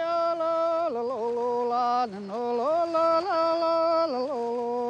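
A single voice singing slowly and without a beat: long held notes that step down and back up between two or three pitches, with short slides between them and a brief breath about two seconds in.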